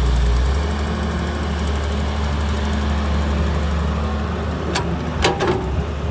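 Hyundai 130W wheeled excavator's diesel engine running steadily, with two sharp knocks near the end.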